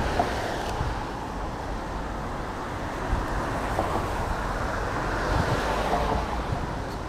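City street traffic noise, with cars passing and growing louder about five seconds in, and wind rumbling on the microphone.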